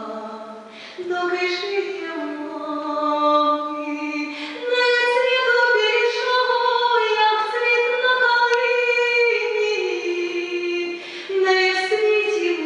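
Solo female voice singing a cappella, with no accompaniment, a slow melody with a long held note in the middle.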